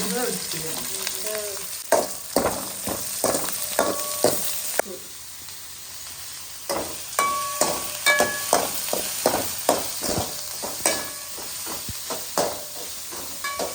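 Onions frying in hot oil, sizzling, while a spoon stirs them and knocks and scrapes against the pan many times. The stirring pauses briefly about five seconds in.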